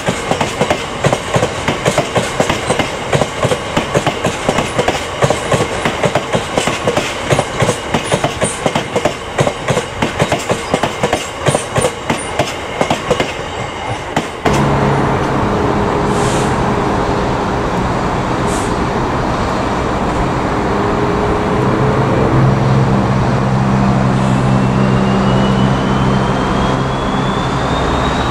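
A long rake of GBRf freight box wagons rolls past with a rapid clickety-clack of wheels over the rail joints. About halfway through this stops abruptly and gives way to the steady low running of a Freightliner Class 66 diesel locomotive's two-stroke V12 engine, approaching at the head of a container train, with a whine rising slowly in pitch near the end.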